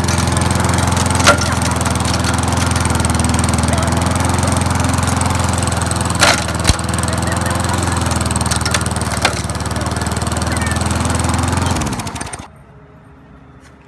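Lawnmower engine running steadily, with a few sharp knocks, then cutting out about twelve seconds in and winding down.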